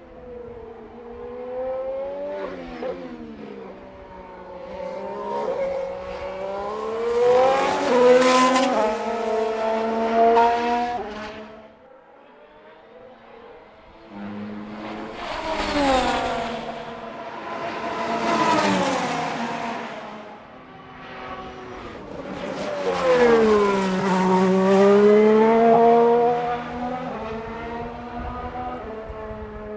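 Renault-powered 2017 Formula 1 cars, 1.6-litre turbocharged hybrid V6 engines, passing at speed several times over, each pass rising in pitch and loudness through gear changes and then dropping away as the car goes by.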